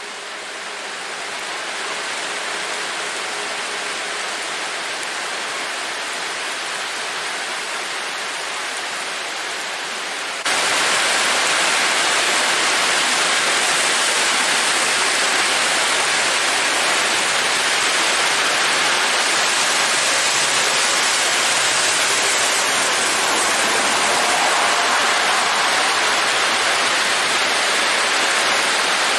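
Heavy rain pouring down, a dense steady hiss. It fades in over the first couple of seconds and becomes louder and brighter about ten seconds in.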